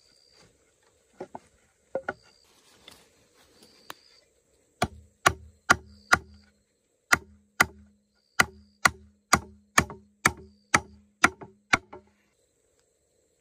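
A hand tool chopping with heavy, regular strikes, about two a second, starting about five seconds in after a few lighter knocks, with a short pause partway through.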